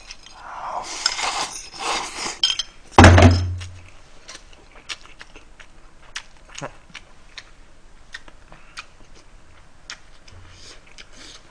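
Slurping from a bowl held to the mouth, then a loud clunk of the bowl or dishes against the table about three seconds in, followed by scattered small clicks of chewing and utensils.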